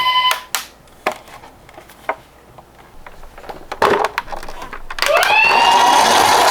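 Toy ambulance's electronic two-tone siren cutting off just after the start, then light clicks and knocks of the plastic toy being handled. About five seconds in, a louder steady rushing noise with a rising tone starts.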